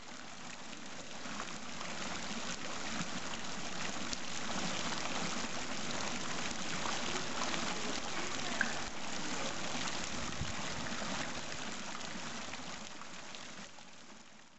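Water from a fountain's jets splashing steadily into its pool. It fades in at the start and out near the end.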